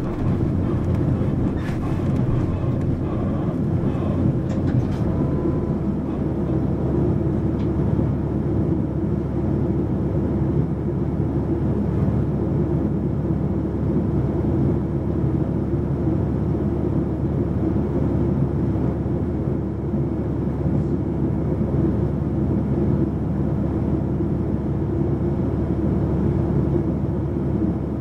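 Mitsubishi Fuso PA-MK25FJ (Aero Midi MK) diesel bus running steadily on the road between stops, its engine holding an even note throughout, with a few faint clicks and rattles in the first few seconds.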